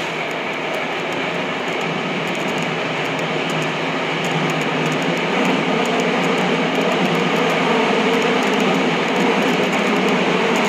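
Tokyo Metro Namboku Line subway train running through its tunnel, heard from on board: a steady rumble of wheels and running gear with faint rail clicks, growing a little louder toward the end.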